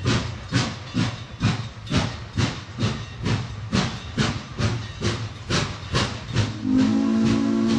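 Frisco 1522, a Baldwin 4-8-2 steam locomotive, working with steady exhaust chuffs about twice a second. About six and a half seconds in, its whistle starts, sounding several notes together and held, louder than the exhaust.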